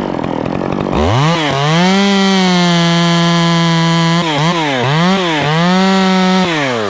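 Two-stroke Stihl chainsaw cutting the face cut in a treetop: revved up to full throttle about a second in and held at a steady high pitch. The revs dip and recover three times around the middle, then drop back toward idle near the end.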